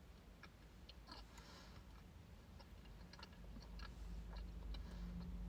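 Faint chewing of chocolate: small wet mouth clicks and a brief crackle about a second in, over a steady low hum.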